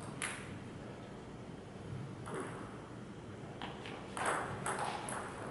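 Table tennis rally: the plastic ball clicking off rubber paddles and the table, several sharp single ticks, coming quicker near the end of the exchange.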